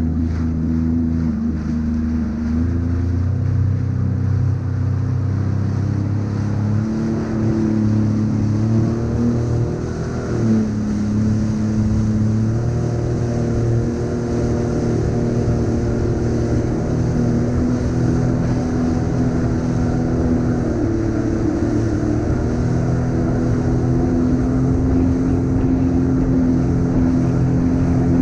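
Sea-Doo personal watercraft engine running at speed. Its pitch holds steady for a few seconds at a time and shifts up and down several times as the throttle changes, with a wash of water and wind noise underneath.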